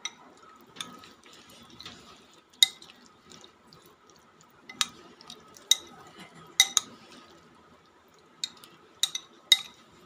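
A metal spoon stirring chicken pieces in a glass bowl, with irregular sharp clinks of the spoon against the glass every second or so.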